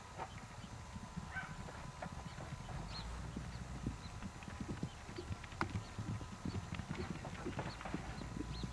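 Hoofbeats of horses galloping on dry dirt: a quick, uneven run of dull thuds that grows denser and a little louder toward the end as more horses run.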